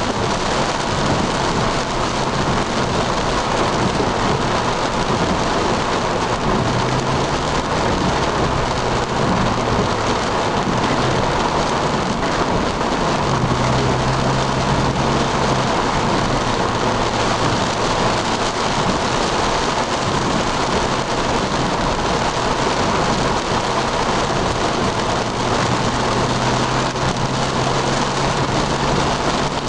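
Heavy rain beating on a moving car's roof and windshield, heard from inside the cabin as a steady, dense hiss, with a low engine hum underneath.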